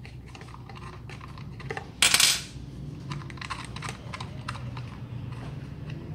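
Small metal clicks and clinks of screws, an Allen key and the clamp of a chainsaw adapter being handled and fitted onto an angle grinder, with one loud clatter about two seconds in.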